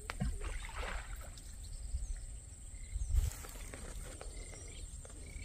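Outdoor ambience: wind rumbling on the microphone in a few gusts, with light rustling and a steady high hiss.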